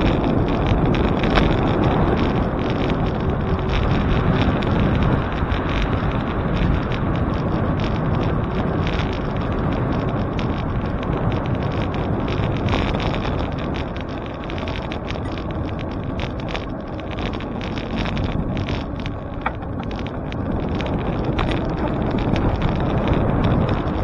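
Steady rushing wind noise on the microphone of a camera riding on a moving bicycle, mixed with road and traffic noise, dipping a little in level for a few seconds in the middle.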